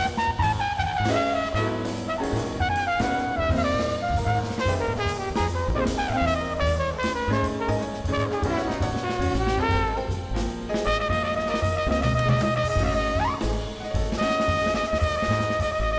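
Jazz band playing live: a horn solos with fast falling runs, then holds one long note for the last few seconds, over string bass and a drum kit.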